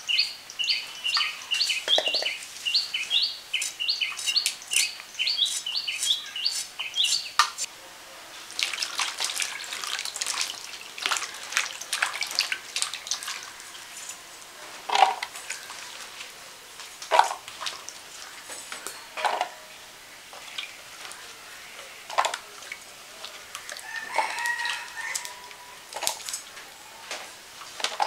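Hands washing peeled kochu muki (taro corms) in a bowl of water, splashing, then separate knocks as pieces are dropped into a dish every couple of seconds. Through the first seven seconds a bird chirps repeatedly, about twice a second, and a chicken calls briefly near the end.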